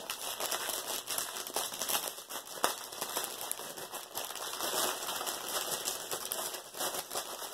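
Clear plastic wrapping crinkling and crackling as a wrapped bundle of diamond-painting drill packets is handled, with one sharper click partway through.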